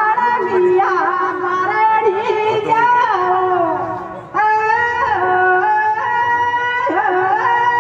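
Live Rajasthani Teja folk music: a held, ornamented melody line that steps and glides in pitch, with few pauses.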